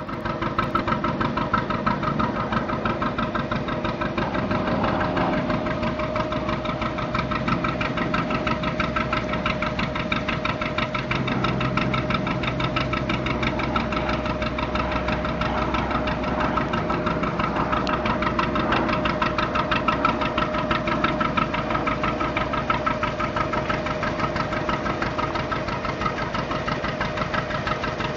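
National 2DM two-cylinder marine diesel engine running steadily at low revs with an even knocking beat.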